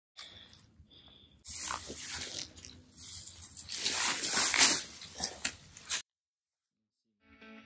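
Crunching and rustling in dry grass with scattered handling clicks, which cuts off suddenly about six seconds in. After a short silence, music begins faintly at the very end.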